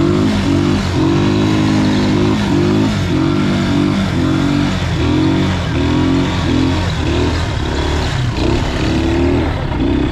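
Quad bike engine running with repeated throttle changes, its pitch rising and dropping every half second or so over a steady low rumble, with a haze of wind and sand noise.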